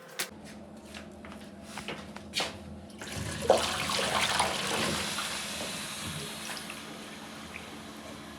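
Sandless automatic cat toilet flushing: a rush of water starts suddenly about three seconds in and fades away over the next few seconds. A few light clicks come before it.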